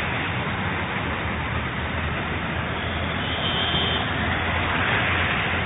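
Steady street traffic noise: an even rush with a low hum beneath it.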